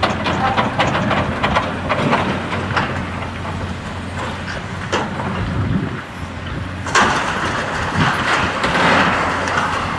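A demolition excavator's diesel engine runs steadily under repeated clanking of metal and rubble as its grab handles the wreckage. About seven seconds in comes a sudden louder spell of crashing and scraping debris.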